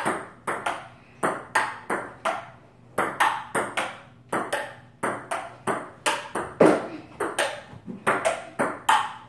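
Ping pong rally: the ball clicking off the rubber paddles and bouncing on the table, a quick, even run of sharp clicks about three a second.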